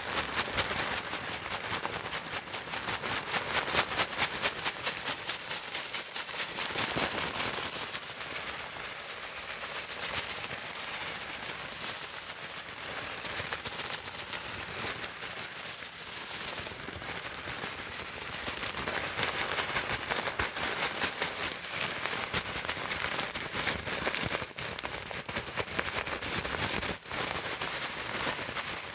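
Comb teeth scraped across a sheet of calendar paper, giving a dense run of rapid crackling clicks that swell and fade as the strokes go on.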